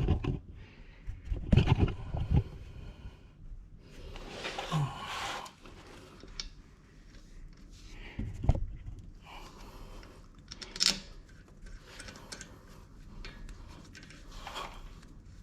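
Scattered metal knocks, clicks and a scrape from fitting the lower bolt of a front brake caliper.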